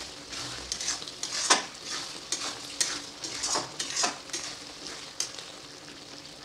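A spatula stirring thick vegetable curry in an aluminium kadai, with irregular knocks and scrapes against the metal pan; the stirring stops near the end.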